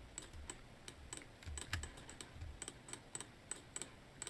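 Computer keyboard keys and mouse buttons clicking lightly at an irregular pace, about three or four clicks a second, some with a soft low knock.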